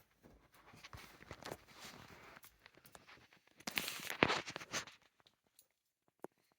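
Toy nuts-and-bolts puzzle pieces and tools clicking, rattling and rustling as they are handled, busiest about four seconds in, then only a few faint clicks.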